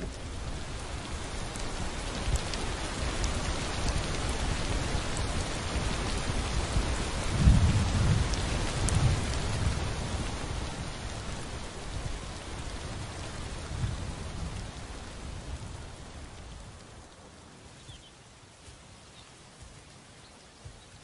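A thunderstorm: heavy rain falls steadily, with a low rumble of thunder about eight seconds in. The rain fades away over the last few seconds.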